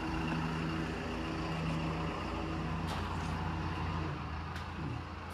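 A motor vehicle's engine idling steadily, fading away about four seconds in.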